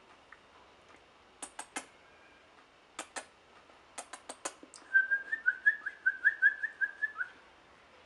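Scattered sharp clicks, then a quick run of about a dozen short whistled notes at a steady pitch lasting a little over two seconds, ending on a short downward slur.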